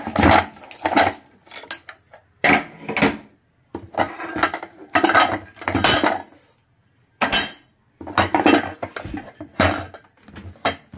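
Finned aluminium heat sinks being lifted and set down on a workbench, clanking and scraping against one another in irregular bursts; one knock about six seconds in rings on briefly with a high metallic tone.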